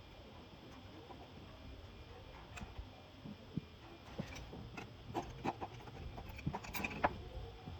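Irregular light clicks and knocks of transmission parts being handled and set down during disassembly, few at first and then a quick cluster through the second half.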